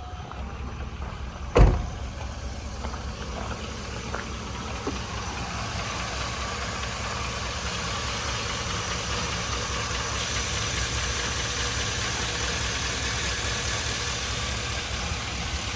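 A Chevy Silverado pickup's engine idling steadily after a coolant top-up, while the repaired heater hose connection is watched for leaks. A single loud thump comes about one and a half seconds in.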